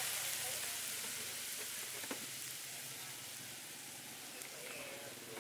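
Quail eggs, corn and dried onion sizzling in an oiled pan over a gas burner, the sizzle fading gradually, with one light tap about two seconds in.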